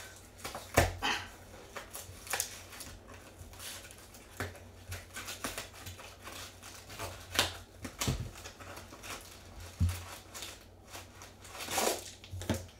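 Clear cellophane wrap and foil trading card pack wrappers crinkling and tearing under hands, in irregular rustles and sharp clicks.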